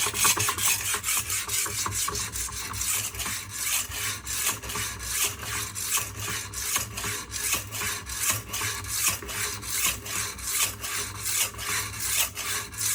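Steel kitchen-knife edge being stroked back and forth on a wet Smith Tri-Hone sharpening stone, a steady rhythmic rasp of about three strokes a second. The edge is being ground down to remove a chip.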